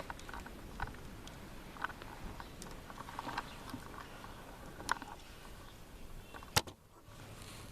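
Faint scattered clicks and taps of handling, then one sharp crack about six and a half seconds in: a shot from a break-barrel air rifle, a BSA Lightning XL Tactical.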